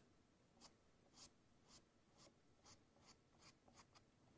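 Faint, short strokes of a paintbrush loaded with acrylic paint dabbing and flicking on canvas, about two to three a second, coming a little closer together near the end.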